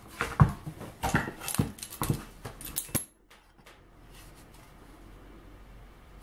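Metal-and-plastic 90-degree corner clamp being unlocked and pulled off plywood boards: a quick series of sharp clicks and knocks of the clamp's lever, jaws and the wood over about three seconds, then it goes quiet.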